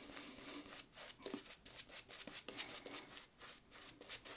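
Synthetic shaving brush working lather onto a bearded face: a faint, irregular run of quick, soft scratchy swishes and small wet crackles from the bristles on the skin.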